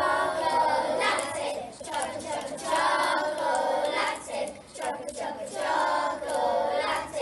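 A group of children singing together in short phrases with brief breaks between them.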